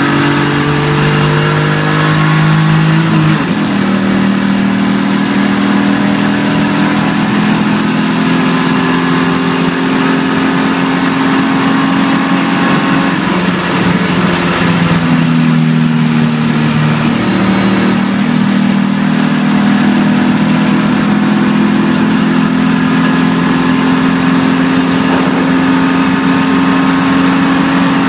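BMW 325ti Compact's 2.5-litre straight-six engine, heard from inside the cabin as the car is driven hard, holding steady revs with shifts in pitch about three seconds in and again between about 13 and 17 seconds. Road and wind noise run underneath.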